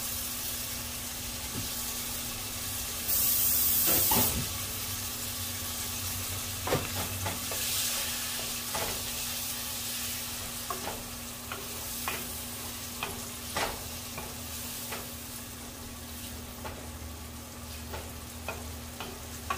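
Cubed raw beef frying in hot oil with onions and berbere, sizzling steadily as a wooden spoon stirs it through, with scattered knocks of the spoon against the pot. A louder hiss lasts about a second, about three seconds in.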